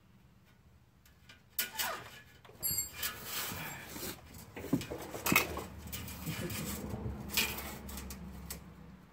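Irregular clinks, clicks and scrapes of metal tools and parts being handled, starting about a second and a half in and going on in uneven bursts.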